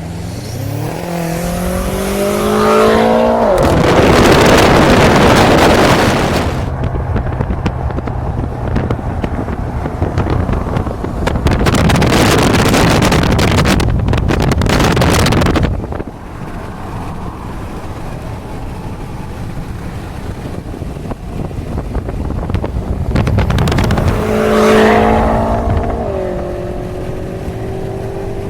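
BMW M6's twin-turbo S63TU V8, with catless downpipes and a Stage 3 tune, under hard pulls: the engine's pitch climbs at the start and again near the end. Between the pulls come long loud rushing stretches, with heavy wind noise on the microphone.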